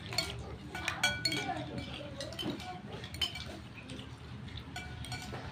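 Metal spoon stirring and scooping food in a ceramic bowl, clinking against the rim and sides several times, each clink ringing briefly.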